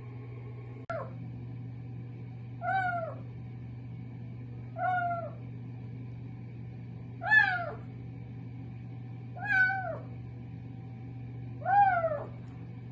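A kitten meowing: six short, drawn calls about two seconds apart, each rising then falling in pitch. A steady low hum runs underneath.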